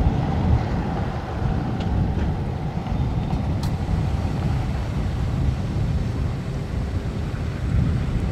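Gusty wind buffeting the microphone: an uneven low rumble that comes and goes in gusts.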